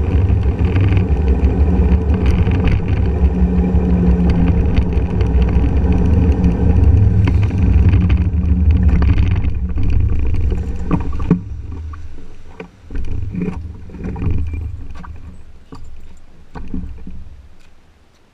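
Honda motor scooter riding along, its engine and road noise mixed with heavy wind rumble on a low-mounted camera. About eleven seconds in the rumble drops sharply as the scooter slows and stops, leaving scattered knocks and clicks that fade out near the end.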